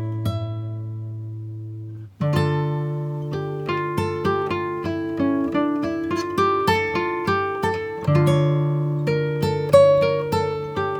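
Background music on acoustic guitar: a chord rings out and fades, then after a short break about two seconds in, a steady picked melody with a bass note underneath.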